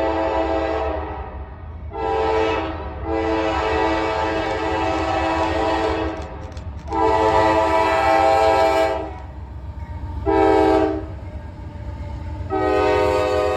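Freight locomotive horn blowing a run of separate blasts: one ending about a second in, a short one, two long ones, a short one and a long one starting near the end. The long, long, short, long sequence is the grade-crossing signal. A steady low rumble from the train runs underneath.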